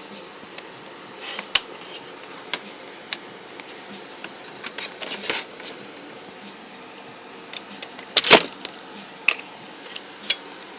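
Scattered clicks and knocks of PlayStation 3 internal parts and cables being handled during disassembly, with the loudest cluster a little after eight seconds in.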